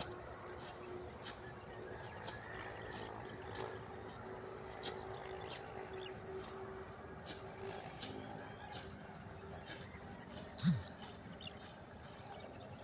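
A sickle cutting through paddy grass in short strokes about every second, over a steady high-pitched drone of crickets and other insects. A brief low thump near the end is the loudest sound.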